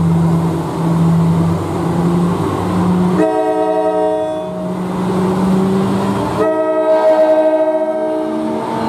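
NJ Transit ALP-45DP dual-mode locomotive on diesel power approaching, its engine running. About three seconds in it sounds its horn in two long blasts, the usual warning for a road grade crossing.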